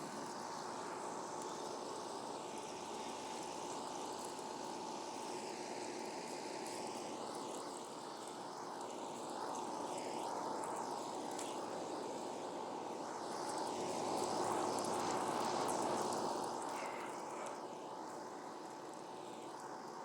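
Air conditioner running: a steady fan rush with a faint hum, swelling a little louder about two-thirds of the way through.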